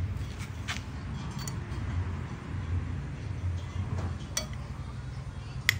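Metal spoon clinking against a ceramic plate as rice is scooped up: a few light clinks, the sharpest one near the end, over a steady low background hum.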